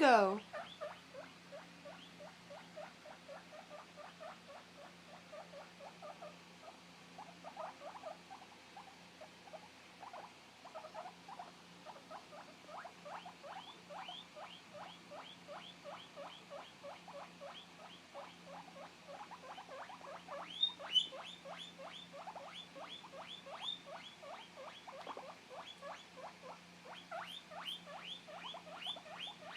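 Young male guinea pig calling in a long run of short rising squeaks, about three or four a second, with a louder stretch about two-thirds of the way in. These are separation calls after his cage mate was taken away.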